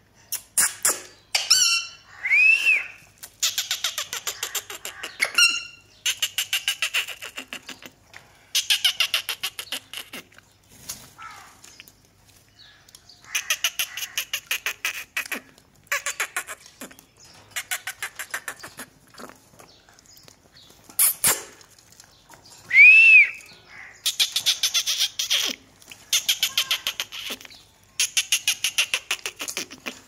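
Rose-ringed parakeet bathing in a water bowl, fluttering its wings in the water in repeated bursts of rapid splashing, each a second or two long. Two short rising-and-falling squawks from a parakeet cut in, about two seconds in and again about twenty-three seconds in, the second the loudest sound.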